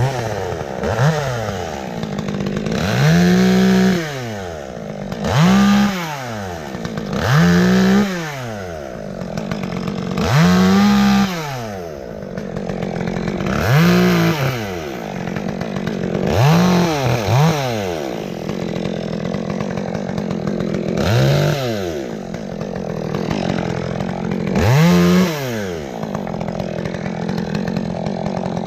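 Two-stroke chainsaw idling and being revved up and let back down to idle about ten times, each rev lasting a second or so.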